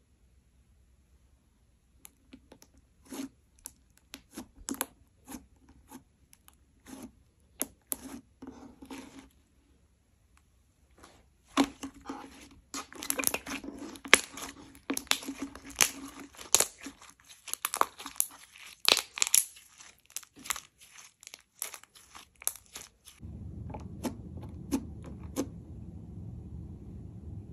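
Clear slime being worked by hand, giving off sharp clicking pops and crackles, scattered at first and coming thick and fast in the middle. Near the end a steady low hum comes in under them.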